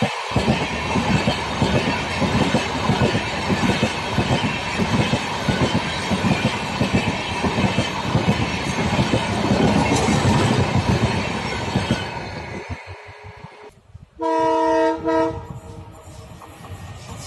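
A diesel-hauled Indian Railways train passing at speed, a steady rush of wheel and rail noise with rapid clickety-clack that fades away after about twelve seconds. After an abrupt break, a locomotive horn sounds a chord of several tones in two short blasts.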